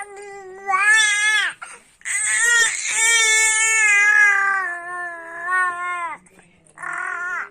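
Five-month-old baby girl crying in three drawn-out wails: a short one, a long wavering one of about four seconds, and a brief one near the end.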